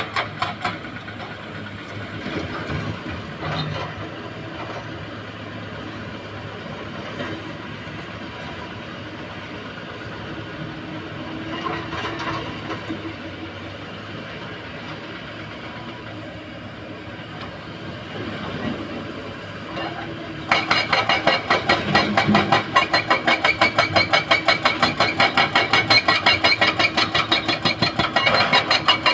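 Diesel engines of excavators working at a dig site, running steadily with occasional knocks. About 20 s in, a much louder rapid rhythmic clatter starts up, about four beats a second.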